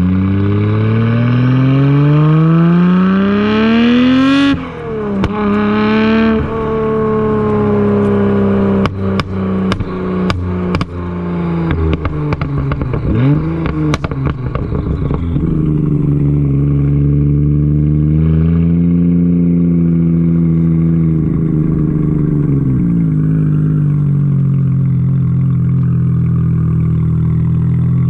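Twin-turbocharged car engine under hard acceleration, pitch rising steadily for about four seconds, a quick upshift, then rising again. Off the throttle it gives a run of sharp exhaust pops and crackles for several seconds, then settles into steady cruising with gentle rises and falls in revs.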